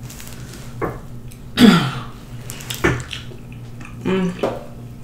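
Wet, smacking eating sounds of a person chewing saucy rotisserie chicken with the mouth open, with scattered small clicks. Two short vocal sounds break in, the louder one about a second and a half in, falling in pitch, the other near the end.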